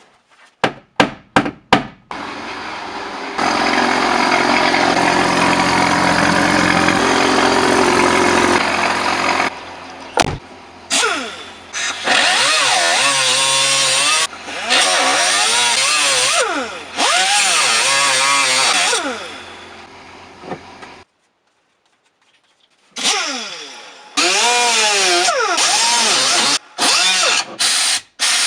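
Power grinder cutting and grinding car floor sheet metal, its motor pitch dipping and recovering as it bites, starting and stopping several times. A run of sharp knocks in the first two seconds.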